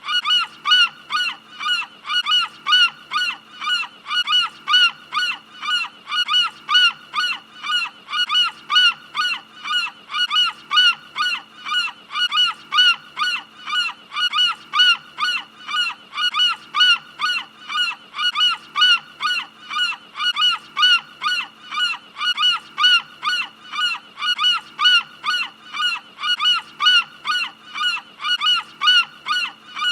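Gull calls repeated rapidly and evenly, about two to three short honking cries a second, as in a looped seagull sound effect, over a faint steady hum.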